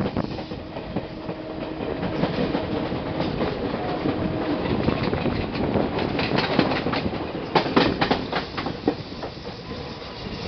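Passenger coach of a moving express train, heard from the coach itself: steel wheels run on the rails with a steady rumble and clickety-clack. Clusters of sharp clicks come as the wheels cross rail joints, and are thickest between about six and nine seconds in.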